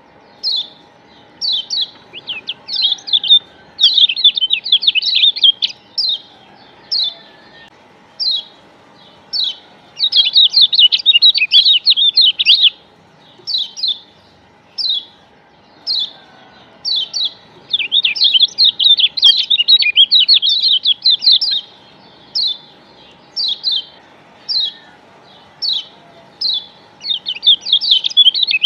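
Lombok yellow white-eye (kecial kuning) calling: short, high, falling chirps about once a second, broken by runs of rapid chattering chirps lasting two to three seconds, four times. It is a lure (pancingan) recording, played to set other white-eyes singing. A faint steady hum lies underneath.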